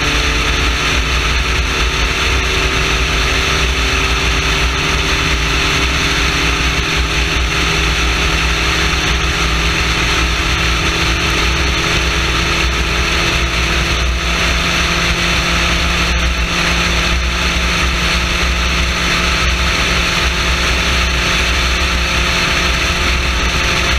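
Spec Racer Ford's engine running hard at steady high speed, heard onboard over heavy wind rush, its pitch holding nearly level.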